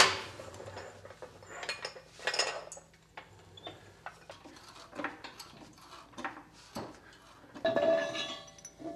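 Scattered metallic clicks and clanks of steel jack gear being handled as a floor jack is set under the car. Near the end comes a longer metallic scrape with a ringing tone as the steel locking pin is slid out of a tall jack stand.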